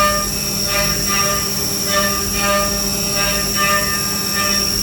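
Background music: a repeating pattern of pitched notes about every half second over a steady drone.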